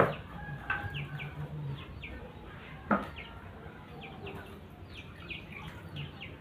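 Chickens and small birds calling in short, falling chirps, with two sharp knocks about three seconds apart.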